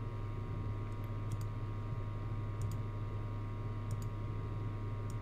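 Computer mouse clicked several times, sharp single clicks a second or so apart, over a steady low electrical hum.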